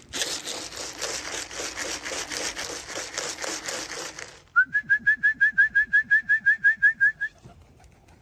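Racing pigeons' wings flapping hard in a fast, dense flutter as the birds come down to land at the loft. After about four and a half seconds this gives way to a quick, evenly spaced run of about sixteen short whistle-like chirps lasting a couple of seconds.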